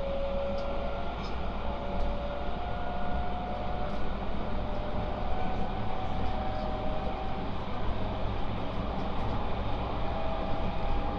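JR West 223 series 2500 subseries electric train running, heard from inside the passenger car: a steady low rolling rumble with a faint motor whine that climbs slowly in pitch.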